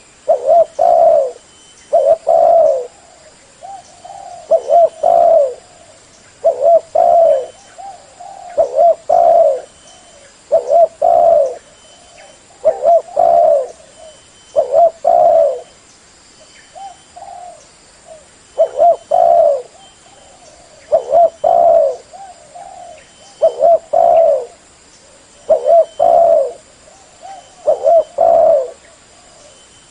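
Spotted dove (terkukur) cooing loudly and repeatedly: a phrase of two or three coos about every two seconds, with a short lull near the middle.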